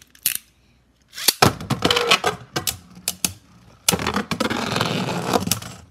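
Ace Dragon Beyblade ripcord-launched into a plastic stadium about a second and a half in, then the spinning tops clattering and knocking against each other and the stadium walls, with a dense continuous rattle near the end.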